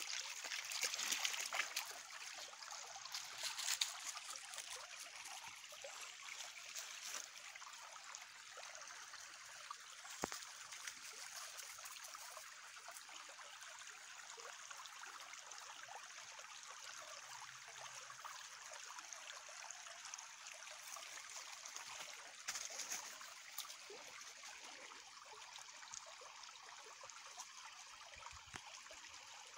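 Small spring-run woodland creek trickling steadily over its bed. There are a few louder moments in the first four seconds.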